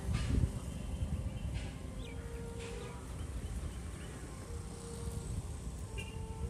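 Outdoor ambience: a steady low rumble with a few short, high chirps and faint ticks scattered through it.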